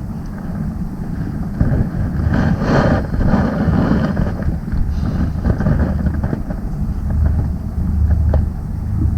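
Wind buffeting the microphone on an open boat: an irregular low rumble, with a stronger gust about three seconds in.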